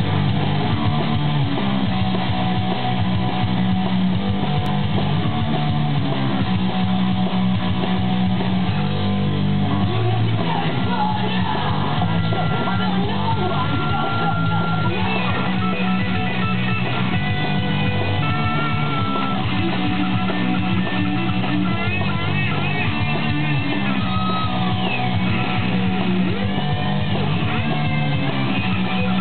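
Electric guitar solo: single-note rock lead lines with string bends and vibrato, played over a backing track with a steady bass line.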